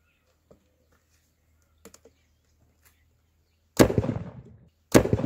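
Homemade PVC-pipe carbide cannon firing twice, about a second apart: each shot a sharp bang that fades away over nearly a second. A few faint clicks come before the first shot.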